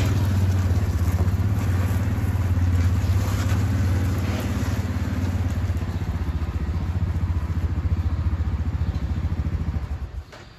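Four-wheeler (ATV) engine running steadily at low speed as it is driven in and parked, then switched off about ten seconds in.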